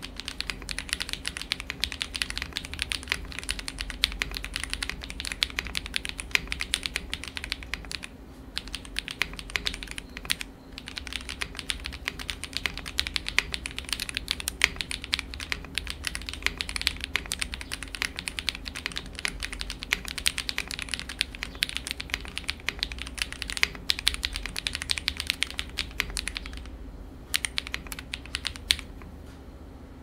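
Fast, continuous typing on a QK65 65% mechanical keyboard with lubed KTT Kang White V3 linear switches and no case foam: a dense stream of keystroke clacks. There are short breaks about eight and ten seconds in and a sparser lull near the end.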